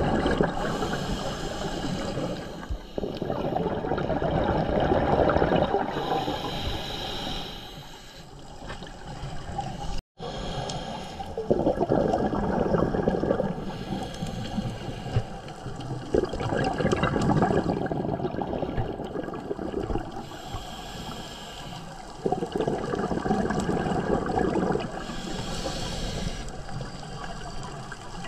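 Scuba diver breathing through a regulator underwater: a hiss on the inhale and a gurgling rush of exhaled bubbles, repeating every few seconds. The sound drops out for an instant about ten seconds in.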